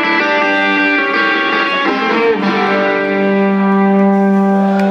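Live rock band playing an instrumental passage between sung lines: amplified electric guitar holding ringing chords, settling into one long sustained low note about halfway through.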